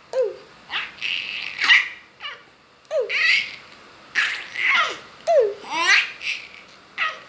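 A baby laughing in a string of short, high-pitched bursts, about one a second.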